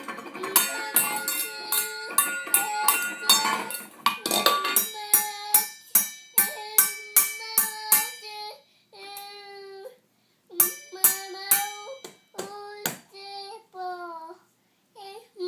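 Stainless steel mixing bowls struck with a wire whisk: quick metallic clangs that ring on, very dense over the first few seconds, then steadier at about two or three a second, and sparser after a short pause about ten seconds in. A toddler sings along between the strikes.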